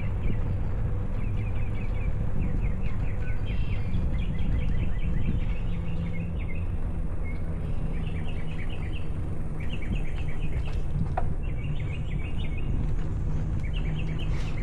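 Steady wind rumble on the camera's microphone while riding. Over it, birds chirp in short, quick runs of notes every second or two.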